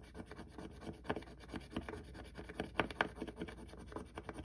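A coin scratching off the gold scratch-off coating on a paper card: a quick run of short, irregular scratchy strokes, a few louder than the rest.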